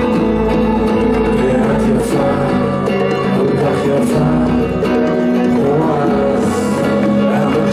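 Live band music: held melodic notes over hand drums, a frame drum and a darbuka (goblet drum) playing.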